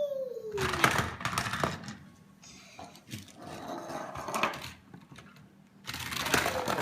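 Plastic toy trains rattling as they roll down a plastic Thomas and Friends Action Tracks playset, in three clattering runs. A short falling whine comes at the start and again near the end.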